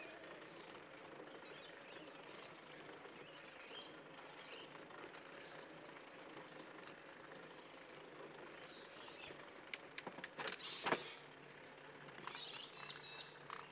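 Custom tadpole recumbent trike rolling along a concrete path: steady tyre and drivetrain noise with a faint steady whine, from the chain running through a guard that rubs. A quick cluster of clicks and knocks comes about ten seconds in, and birds chirp near the end.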